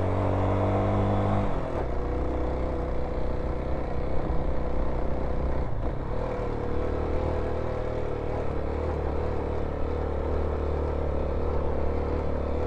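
Kawasaki KLX dual-sport motorcycle's single-cylinder four-stroke engine running under way; its pitch climbs for about a second and a half, falls sharply, then holds steady.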